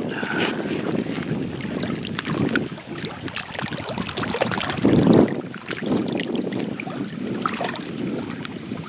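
Small waves lapping and washing over a rock shoreline, swelling and falling every second or two, with water sloshing as a hand scrubs a mineral specimen in the shallows. Wind buffets the microphone.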